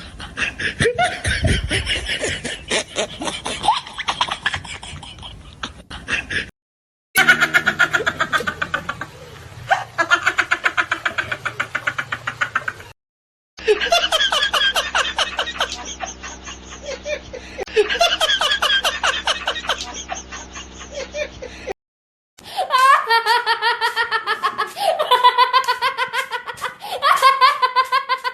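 A series of laugh sound-effect clips, several different people laughing in rapid, pulsing bursts, each clip ending abruptly. There are short silences between clips, about 6, 13 and 22 seconds in.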